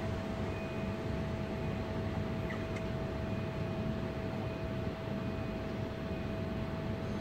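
Steady railway-station ambient noise with a faint steady whine running through it, and no train close by.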